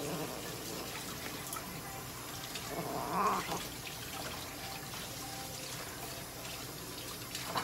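A cat meows loudly once, about three seconds in, while it is held and brushed.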